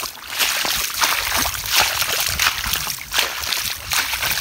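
Shallow muddy rainwater splashing and sloshing in a quick, irregular run of splashes as it is waded through, over a low rumble.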